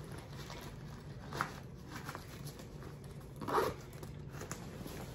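Backpack zipper pulled in a few short strokes, the loudest about three and a half seconds in.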